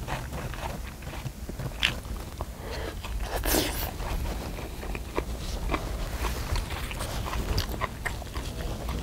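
Close-miked chewing of spicy marinated pork, with wet mouth clicks and smacks. About three and a half seconds in there is a brief, louder rustling noise, over a steady low rumble.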